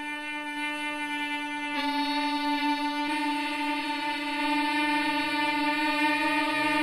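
Experimental noise-music drone: several steady, horn-like pitched tones held together as a dissonant chord. The pitches shift slightly about two seconds in and again a second later, and the drone grows gradually louder.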